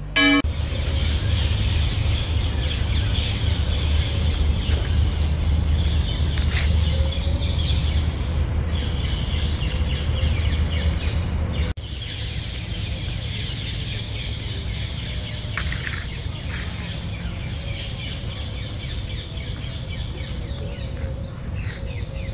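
Birds chirping and calling in trees over a steady low rumble. The sound drops suddenly to a quieter level about halfway through.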